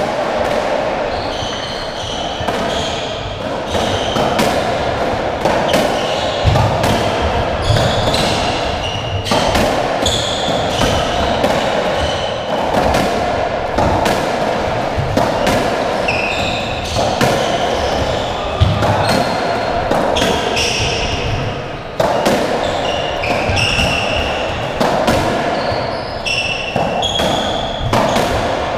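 Racketball rally: the ball is struck by rackets and smacks off the court walls and wooden floor again and again, at irregular intervals. Short high squeaks of shoes on the wooden floor come in between, over a steady background hiss.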